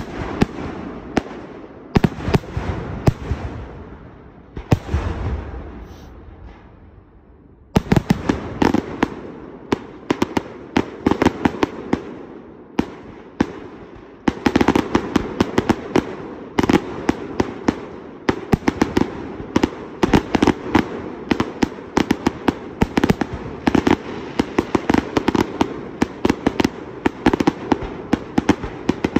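Aerial display fireworks going off in rapid succession: many sharp bangs of shells and comets bursting overhead, one close on another. There is a brief lull about five to seven seconds in, then the bangs come thick and fast for the rest.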